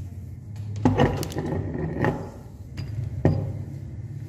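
Metal meat grinder parts being handled and knocked against a plastic tray of crumbled polymer clay: a few clinks and knocks, the sharpest about a second in and just after three seconds, over a steady low hum.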